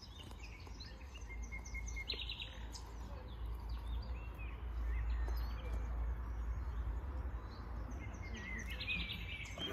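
Outdoor ambience: small birds chirping, with a short trill about two seconds in and another near the end, over a steady low rumble.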